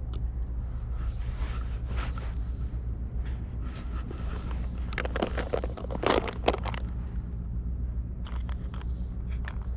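Handling noise from changing a fishing lure: rustling and clicking of a plastic lure box and soft-plastic lures, loudest in a cluster of clicks about five to six and a half seconds in, with a few sharp ticks near the end. A steady low rumble runs underneath.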